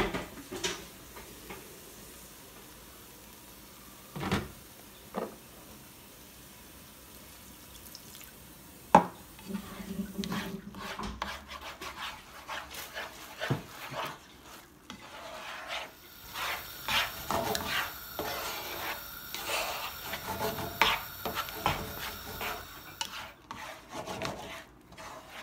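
A slotted spatula stirring and scraping chilli beans around a frying pan: a few light clicks and one sharp knock on the pan about nine seconds in, then repeated scraping strokes through the rest.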